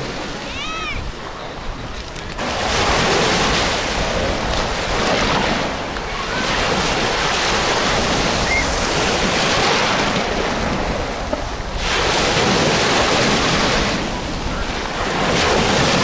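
Sea waves breaking and washing in at the edge of a pebble beach, the surf swelling and easing every few seconds.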